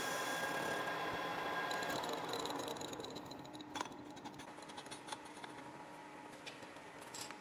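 Metal lathe running steadily, then switched off and spinning down about two seconds in. A few light clicks and knocks follow.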